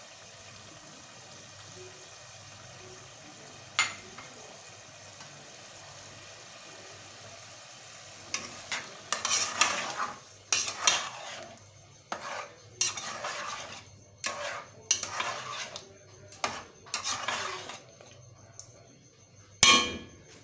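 Chicken curry with freshly added yogurt sizzling in an aluminium pot, then a plastic spatula stirring and scraping round the pot in strokes about once a second. A sharp knock near the end.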